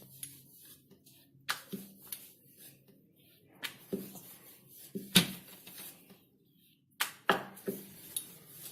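Rolling pin tapping and clicking against a rolling board as a small ball of gujiya dough is rolled out thin, in a dozen or so irregular knocks.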